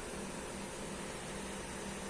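Steady hiss with a low electrical hum underneath.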